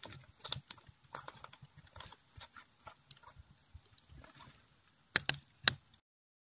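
Kindling and split firewood crackling and popping as a freshly lit wood fire catches in a smokehouse firebox, with a few louder snaps near the end before the sound cuts off abruptly.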